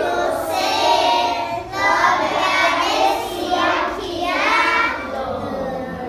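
A group of young children singing a song together in unison, in phrases with short breaths between them; the singing fades out near the end.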